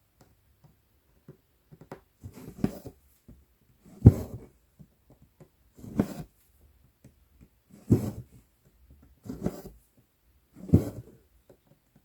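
Embroidery needle and cotton floss drawn through 11-count Aida cloth, a short scratchy rustle of thread through fabric about every one and a half to two seconds, six strokes in all.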